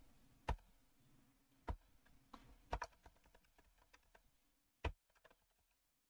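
Typing on a computer keyboard: scattered, uneven keystroke clicks, a few louder than the rest.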